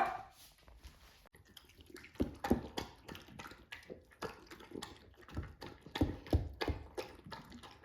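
A dog eating small pieces of meat, with irregular soft chewing smacks and clicks starting about two seconds in.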